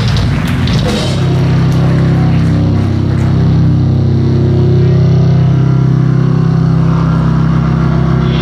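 Live rock band's amplified guitars and bass holding a loud, sustained low chord, after a few sharp hits in the first second.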